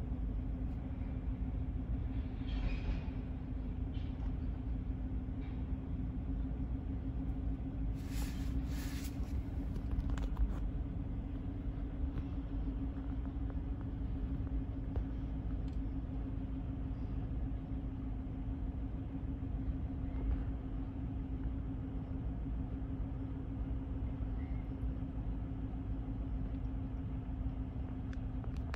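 CSX mixed freight train of tank cars rolling past over a grade crossing: a steady rumble of wheels on rail with a steady hum, and a couple of brief sharper knocks about eight seconds in.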